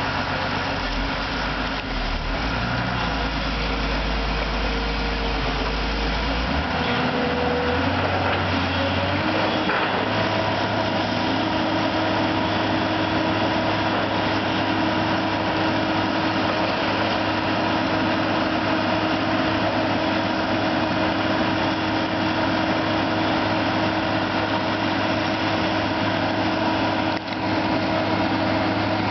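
Diesel engine of a long-reach demolition excavator running steadily. Its note steps up once, several seconds in, and then holds.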